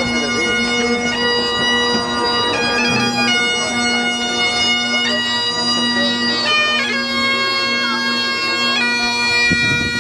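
Great Highland bagpipe played solo: a steady drone sounding under a chanter melody that steps from one held note to the next.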